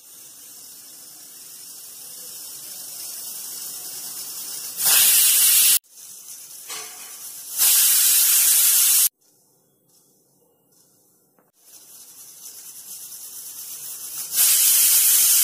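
Aluminium stovetop pressure cooker letting off steam through its weight valve: a hiss that builds up, then three loud whistles of escaping steam, about five seconds in, eight seconds in and near the end, with a quiet gap between the second and third. The whistles show the cooker has come up to pressure and mark the counted whistles of the cooking.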